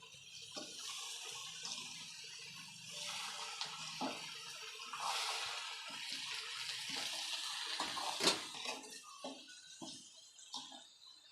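Hot herbal decoction poured through a strainer into a vessel: a steady splashing of liquid that stops about nine seconds in. A few sharp clinks of utensils sound along with it, the loudest about eight seconds in.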